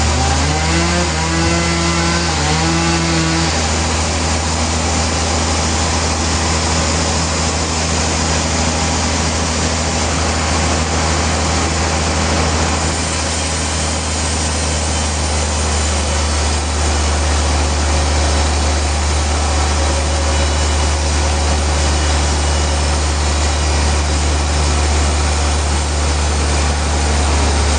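Sawmill saw running steadily and cutting through a trembesi (rain tree) hardwood log, over a constant low engine drone.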